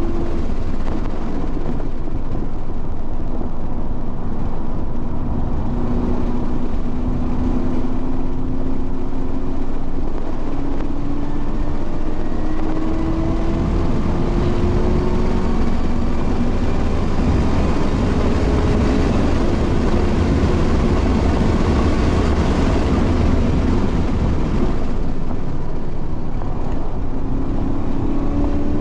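Race car engine under hard acceleration on a circuit, its pitch climbing steadily through the revs several times and dropping back between climbs, over heavy wind and tyre rumble. There is a short easing-off near the end before it pulls up again.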